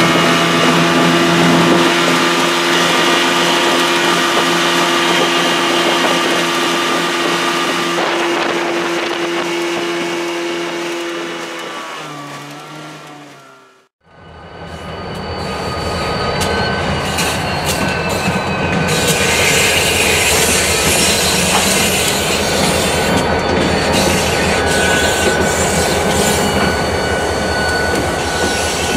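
A 20 hp Mercury two-stroke outboard running steadily at full speed, dropping in pitch and fading out about halfway through. Then a pair of diesel freight locomotives rumbles past, with steel wheels squealing on the rails.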